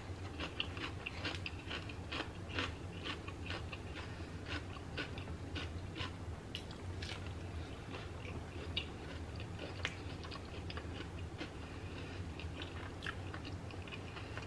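Close-up eating sounds of a person chewing bites of a cheesy buffalo chicken quesadilla in a flour tortilla: irregular crunches and wet mouth clicks, several to the second.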